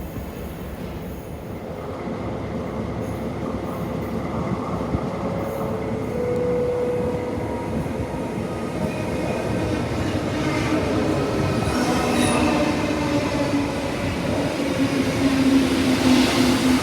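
A train running through the station on steel rails, growing gradually louder, with high, held wheel squeal tones coming in from about a third of the way in.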